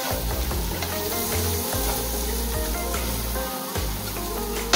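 Masala scrambled eggs sizzling in a nonstick frying pan as a spatula stirs them, with background music.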